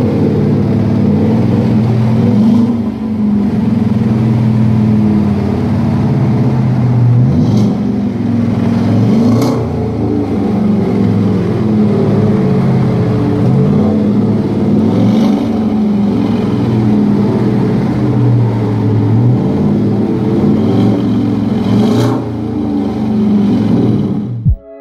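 Chevrolet Silverado Z71 pickup with an aftermarket performance exhaust, the engine running at idle with the revs rising and falling several times.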